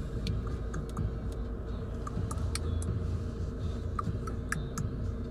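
Road noise of a van in motion heard from inside the cabin: a steady low rumble of engine and tyres, with scattered small clicks and rattles.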